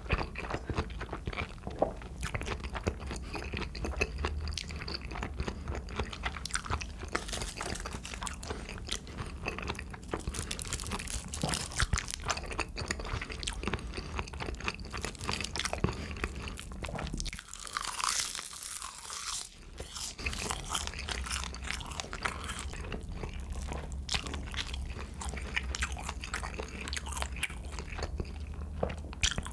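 Close-miked eating sounds: a person chewing and crunching soy-marinated raw shrimp with rice wrapped in roasted laver, with many small wet mouth clicks and smacks throughout.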